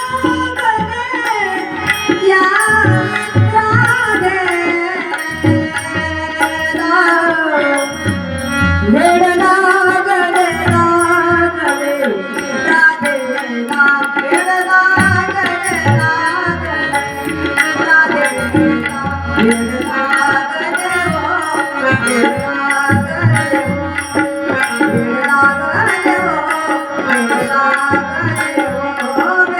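A woman singing a Marathi devotional song with a gliding, ornamented melody, over steady rhythmic mridang drumming.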